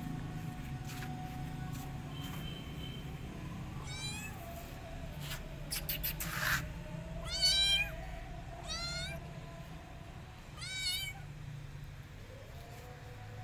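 Kitten mewing: four short, high-pitched mews spread through the middle, the loudest one about halfway. A brief burst of scuffling noise comes just before the loudest mew.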